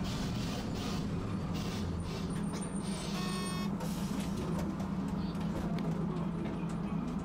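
Tosaden streetcar running, heard from inside the car: a steady low hum with rattling clicks in the first couple of seconds, and a short beep about three seconds in.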